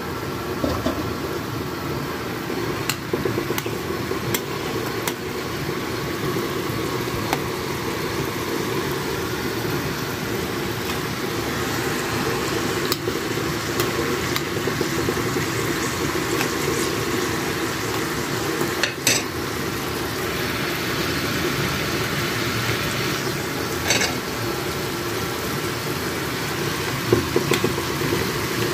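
Diced carrots sizzling steadily as they fry in a pan, with a pot of brisket broth boiling beside them. There are a few sharp clinks, and near the end a metal spoon skims the foam from the broth.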